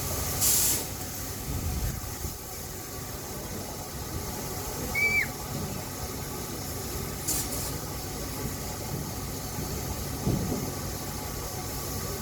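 Steam locomotive Tornado, a Peppercorn A1 Pacific, standing in steam with a steady low background rumble and two short hisses of escaping steam, about half a second in and again about seven seconds in.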